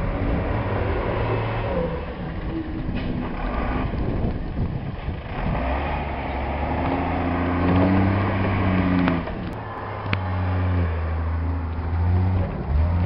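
Snowplow truck's engine working hard as it pushes deep snow. The engine pitch rises about halfway through, then falls back, over a steady rushing noise.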